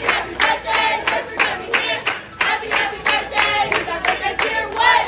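A group of voices singing together to steady rhythmic hand-clapping, about three claps a second.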